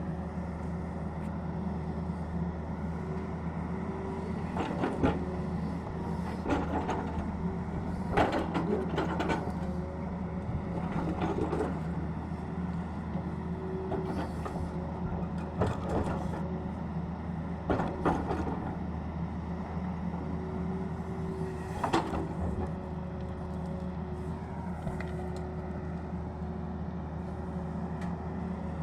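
Tata Hitachi excavator's diesel engine running steadily at a working pace, with sharp knocks every few seconds as the machine works.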